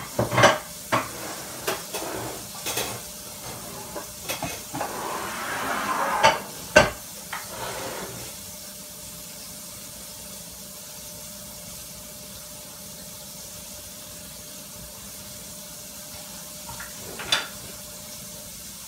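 Cube steaks sizzling as they brown in a skillet, with a fork and utensils clicking and knocking against the pan. The sizzle swells about five seconds in, then settles to a faint steady hiss, with one more clink near the end.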